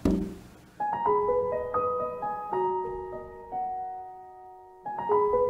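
Background music: a slow, gentle piano melody of single held notes. It begins about a second in after a short low thud, fades, and picks up again near the end.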